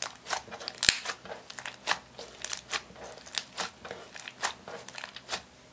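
Clear slime with eyeshadow mixed in being squeezed and kneaded by hand, giving irregular sharp clicks and pops a few times a second.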